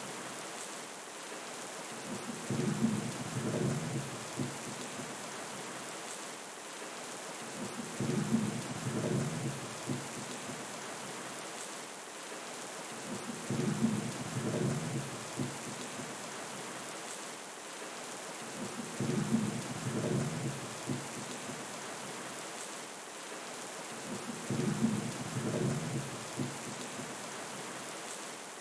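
Steady rain with low rolls of thunder that swell and fade about every five to six seconds, five times over.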